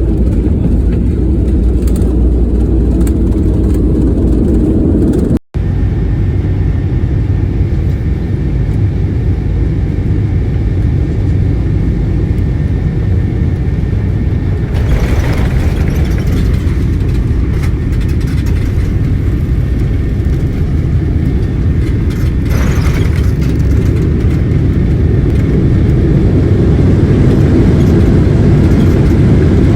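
Boeing airliner landing: a loud, steady low rumble. It drops out for an instant about five seconds in, and the higher hiss swells briefly twice later on.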